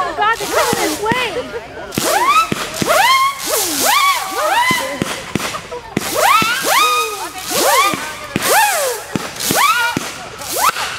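Consumer fireworks going off in quick succession: many short whistles overlapping, each rising and then dropping in pitch, with sharp pops among them.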